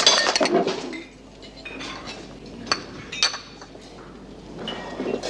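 Crockery and cutlery clinking and clattering: a busy clatter in the first second, then a few single sharp clinks in the middle.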